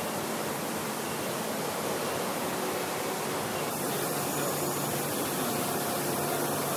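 Steady hiss of background noise in a factory hall, even throughout, its upper part changing abruptly a little under four seconds in at a cut in the recording.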